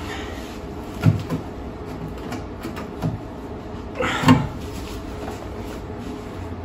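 Hands and tools knocking against the steel sill of a VW Golf Mk4 during rust repair: two sharp knocks about a second in, another a couple of seconds later, and a longer, louder scraping clunk at about four seconds. A steady hum runs underneath.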